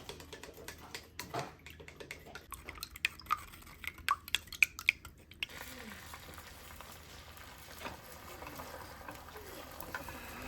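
Kitchen sounds: dishes and cutlery clinking and knocking for the first five seconds or so, then a steadier hiss for the rest.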